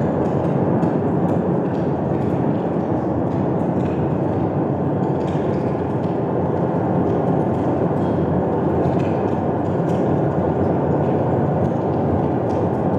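Steady, loud rumbling roar of industrial sound effects from the casting-floor light display, which simulates molten iron running into the pig beds, with a few faint clicks over it.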